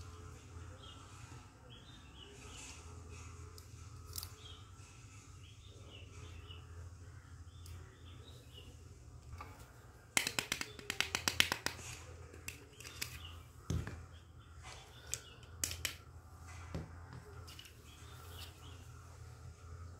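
Hard plastic toy kitchen pieces being handled: a quick run of clicks and rattles about halfway through, then a few single knocks as pieces are set down. A low steady hum underneath.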